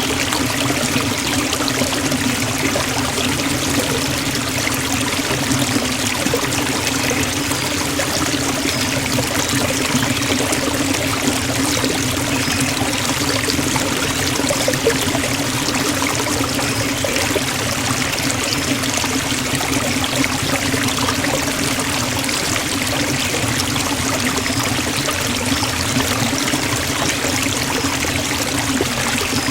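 Forest waterfall: falling water rushing and splashing in a constant, unbroken stream.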